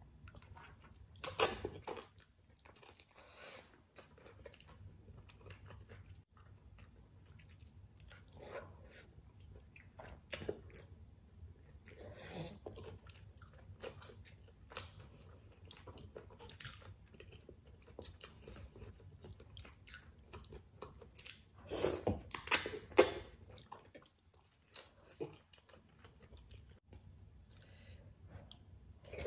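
Close-up eating sounds of spicy seafood ramen: a person slurping noodles and chewing, with wet mouth sounds. There is one loud burst about a second and a half in and a louder cluster about three quarters of the way through.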